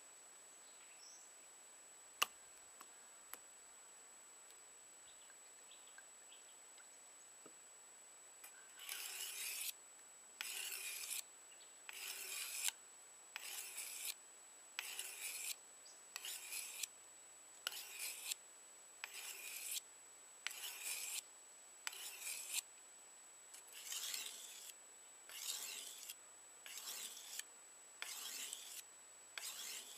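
Steel hunting-knife blade stroked back and forth across a wet whetstone: rhythmic gritty rubbing strokes, about fifteen of them, each under a second long and roughly one every 1.3 seconds, starting about nine seconds in.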